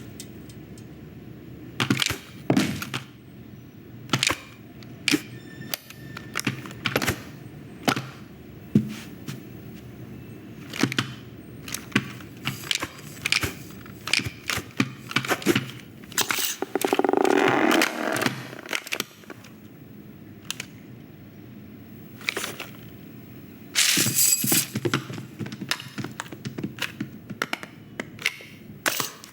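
Animated-film sound effects without music or dialogue: a string of separate knocks, thuds and cracks, with a louder rough clatter of about two seconds near the middle and another loud burst about two-thirds of the way through.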